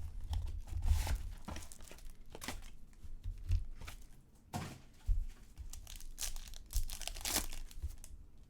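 Plastic wrapping on a box of trading cards being torn open and crinkled by hand, with irregular crackling and a few louder crinkles.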